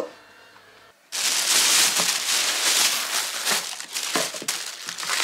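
Plastic carrier bags crinkling and rustling as takeout food and small plastic containers are unpacked by hand, starting suddenly about a second in.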